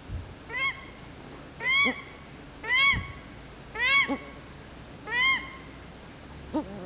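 Paradise shelducks calling: a series of six shrill, arching calls about a second apart, typical of the female's call, with the male's deeper honk sounding under a few of them.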